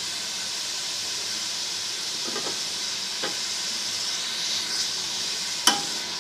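Beef pieces sizzling steadily in hot oil as the meat releases its water. A few faint knocks sound partway through, and a sharper click comes near the end.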